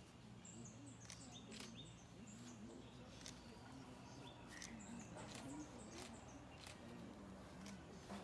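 Faint chirping of small birds: short, high chirps repeating at irregular intervals, over a low murmur of distant voices.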